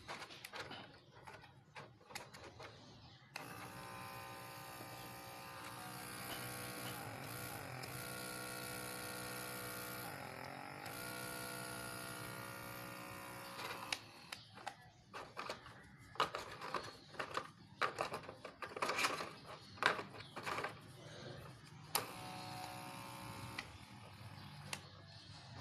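Handheld blackhead suction device (DermaSuction pore vacuum) switched on: its small motor pump runs with a steady whining hum for about ten seconds, the pitch wavering twice, then stops. Clicks and handling noises follow, and the motor runs again briefly near the end.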